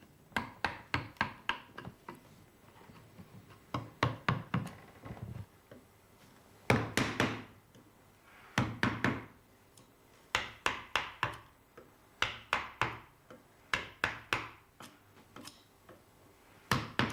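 Large carver's mallet (geno) driving a roughing chisel into Japanese whitebark magnolia: sharp knocks about three a second, in runs of several blows with short pauses between them.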